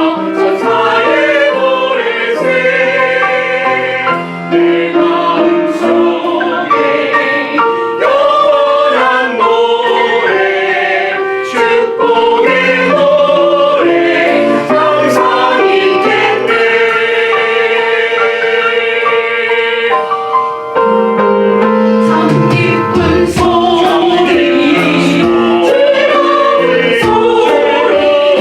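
Church choir singing a hymn in several parts, sustained notes moving from chord to chord.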